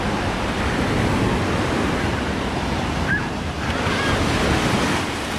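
Small waves breaking and washing up the sand at the water's edge, with wind rumbling on the microphone.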